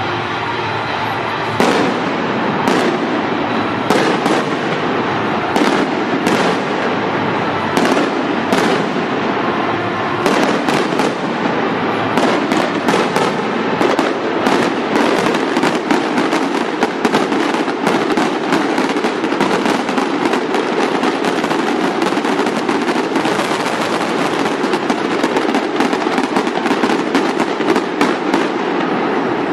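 Aerial fireworks bursting overhead: single bangs a second or two apart at first, then from about ten seconds in a dense barrage of rapid bangs that runs on nearly without a break.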